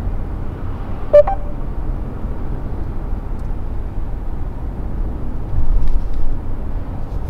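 Steady low road and engine rumble inside the cabin of a Mercedes E450 cabriolet cruising at about 50 km/h, with its 3.0-litre turbo inline-six at around 1,800 rpm. A short tone with a click sounds about a second in, and the rumble briefly swells louder about two-thirds of the way through.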